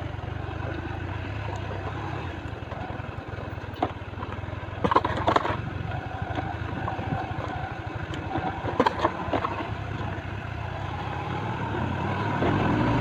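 Motorcycle engine running steadily while riding, with road and wind noise and a few sharp knocks around the middle.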